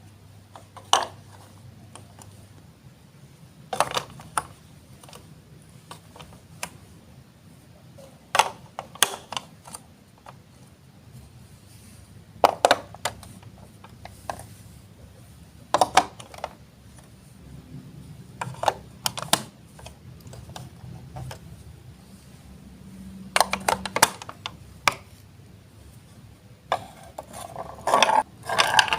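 Plastic Lego Duplo blocks being set down and pressed together: single sharp clicks and clacks every few seconds, sometimes two in quick succession. A denser plastic rattle starts near the end.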